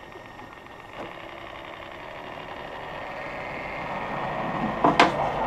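A cordless caulking gun's small motor runs steadily, driving polyurethane adhesive out of the tube, and grows gradually louder. A few sharp clicks come near the end.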